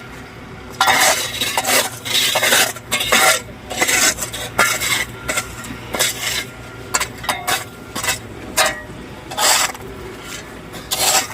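Repeated scraping strokes of a metal hand tool working asphalt, irregular, about one a second, over a low steady machine hum.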